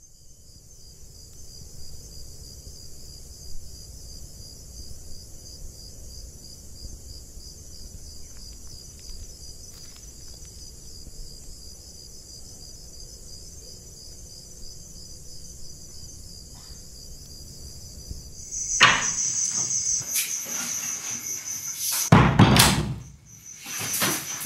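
Crickets chirping steadily over a low room hum. Near the end come several louder knocks and one heavy thud.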